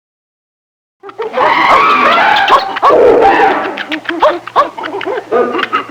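Zoo animal ambience: a dense mix of overlapping animal calls, many short rising-and-falling cries and chirps, starting about a second in.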